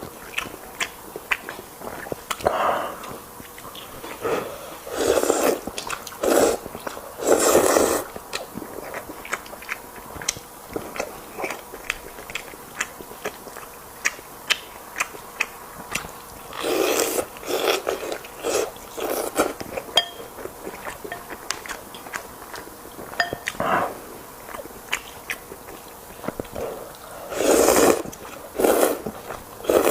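Close-miked eating: wet chewing and biting with many small mouth clicks and smacks, broken by a few louder bites.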